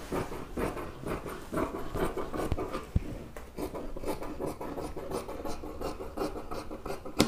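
Scissors cutting through dress fabric in quick, repeated snips, with a sharper click about three seconds in and another near the end.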